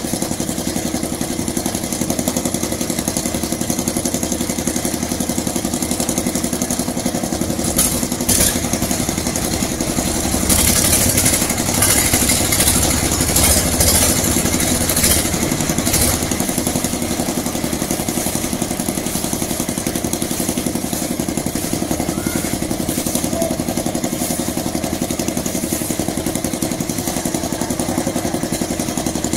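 Small engine running steadily on concrete-pouring equipment, with a louder stretch of clattering, hissing noise from about ten to sixteen seconds in.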